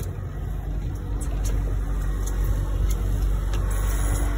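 A boat's outboard motor running steadily at low trolling speed, a low even hum, with a few faint ticks over it.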